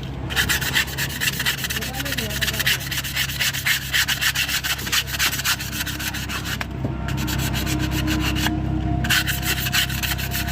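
Sandpaper rubbed hard over a car's steel brake disc in rapid back-and-forth strokes, with a couple of brief pauses. The rubbing cleans off rust stains that formed while the car stood unused, before new brake pads go on.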